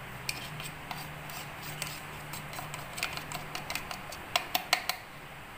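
Plastic spoon tapping and scraping against a plastic spice box and a plate while spooning ground spices onto flour: a string of light, irregular clicks, with a few sharper ones a little after four seconds in.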